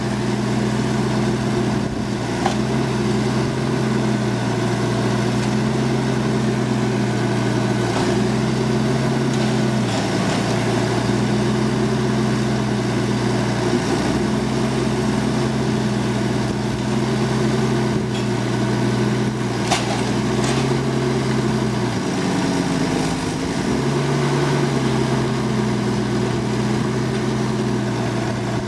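Timberjack forwarder's diesel engine running steadily while its hydraulic crane swings. The engine note shifts once about a third of the way in and sags and wavers for about two seconds about three-quarters through, with a few faint knocks.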